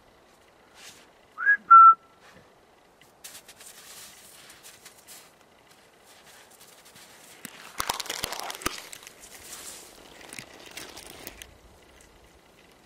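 A loud two-note whistle about one and a half seconds in, a quick up-and-down note then a short held one, a person whistling to a dog. After it come scattered rustling and crackling among spruce branches and snow, heaviest about eight seconds in.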